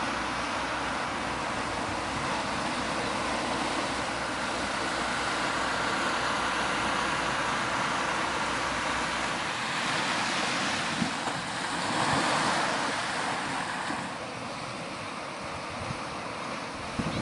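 Ocean surf washing onto the shore, a steady rush of noise, with a low rumble underneath that falls away about halfway through.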